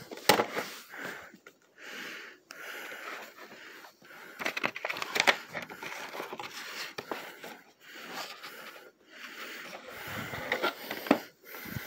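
Plastic VHS tape cases being handled: scattered clicks and scrapes as tapes are lifted from a stack and a clamshell case is opened, with a hissing rustle in between.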